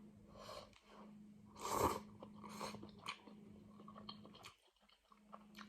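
A person chewing and eating a mouthful of vegetable noodle soup, several short wet mouth sounds, the loudest a little under two seconds in.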